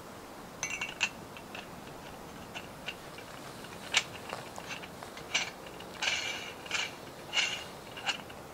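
Irregular series of sharp metallic clicks and clinks, some with a brief ring, the longest cluster a little past the middle.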